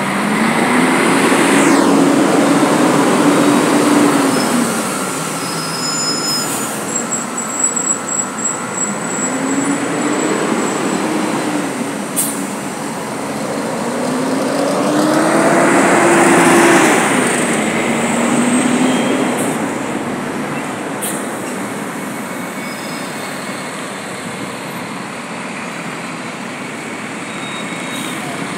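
Articulated city bus pulling away and driving past close by, its drive tone rising in pitch, holding, then dropping away. It is loudest about three seconds in and again around sixteen seconds, then gives way to steady road traffic.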